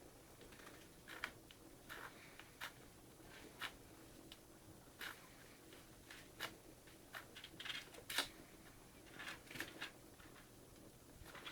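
Degu eating soft pap: faint, irregular wet clicks and smacks, some with a short hissing snuffle. The loudest comes about 8 seconds in.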